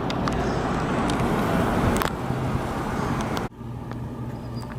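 Steady rush of road traffic noise outdoors, cutting off abruptly about three and a half seconds in to a quieter room with a low steady hum.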